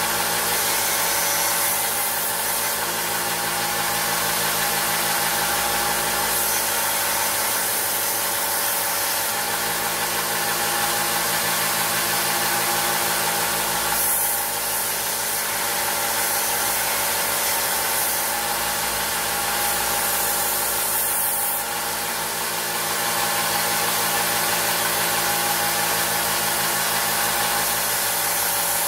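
Belt sander running steadily, grinding rust off a steel pocket-knife blade, with a brief change in the sound about halfway through and again about three-quarters through.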